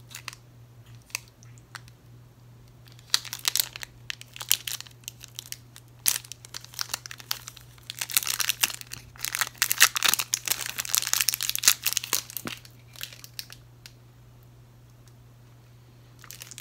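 Plastic candy wrapper crinkling in irregular bursts, sparse at first and densest in the middle before dying away.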